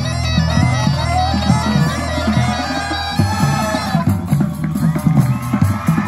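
Marching band playing: a quick high melody over steady low held notes, with drum strokes throughout; the melody changes about three seconds in.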